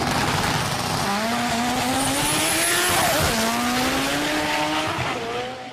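Racing car engine accelerating hard at high revs, its pitch climbing steadily, dropping sharply at an upshift about three seconds in, then climbing again before fading out near the end.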